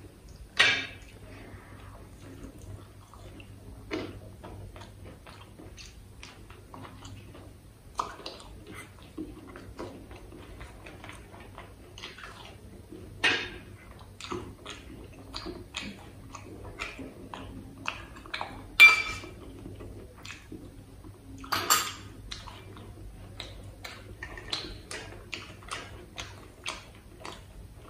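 Close-miked eating: wet chewing and lip smacks of fried puri and kachori with potato curry. It makes a steady run of short clicks and smacks, with a few louder ones.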